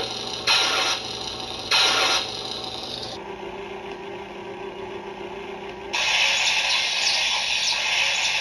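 Sound effects from a Lorsaberus RGB toy lightsaber's speaker: a steady electronic hum with three short, loud swing-or-clash bursts in the first two seconds. About three seconds in the hum changes to a higher pitch, and about six seconds in a louder hissing crackle with faint ticks takes over.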